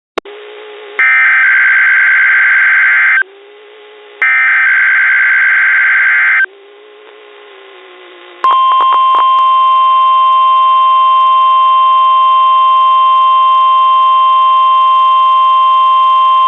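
NOAA Weather Radio weekly test alert signals: two harsh, buzzing bursts of SAME digital header data, about two seconds each with a second's pause between. About two seconds later a steady high 1050 Hz warning alarm tone starts and holds.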